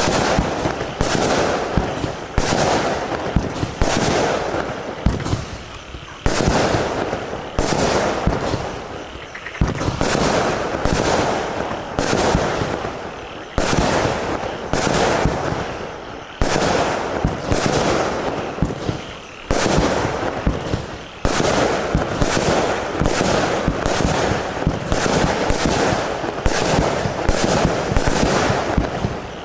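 Argento Azurro AC25-36-4 firework going off in a rapid sequence of shots, about one to two a second, each followed by a fading crackle.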